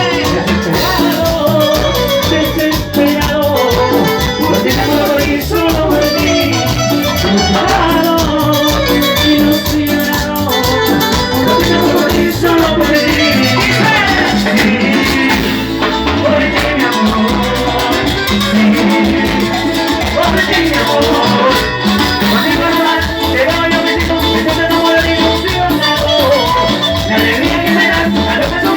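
Loud live band music in a Latin American dance style, playing continuously.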